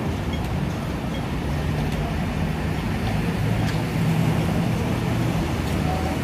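Road traffic noise: vehicle engines running on a busy city street, with a deeper engine hum that swells from about a second and a half in and fades off again a few seconds later.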